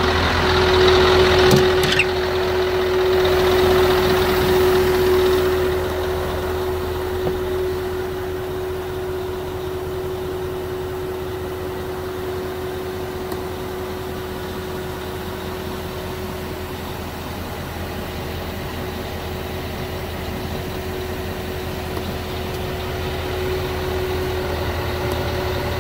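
Scania R500's 16-litre V8 diesel idling steadily. It is louder at first, then muffled and quieter from about six seconds in, as heard from inside the cab. A single sharp click comes about two seconds in.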